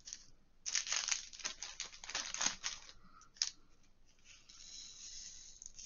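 Tiny plastic diamond-painting drills poured into a small plastic tray: a dense rattling of many little beads for about two seconds, a single sharp click, then a softer, hissing rustle near the end.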